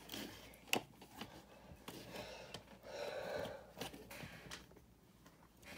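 LEGO plastic pieces being handled and pressed together: a few scattered light clicks with a brief soft rustle in the middle.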